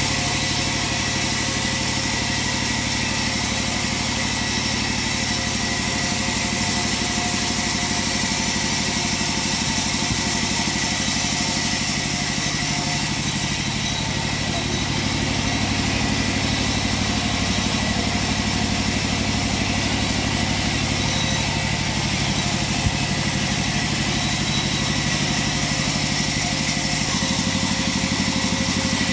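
Sawmill machinery running steadily: a motor-driven saw giving a constant hum with a bright hiss on top.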